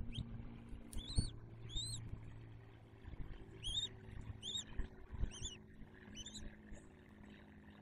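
Bald eagle chirping at the nest: about eight short, high chirps in a loose series, over a low wind rumble with a couple of dull knocks.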